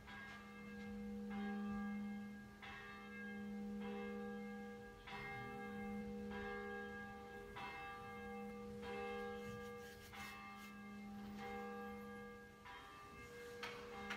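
Church bell tolling steadily, about a dozen strikes roughly 1.3 seconds apart, its low hum ringing on between strikes.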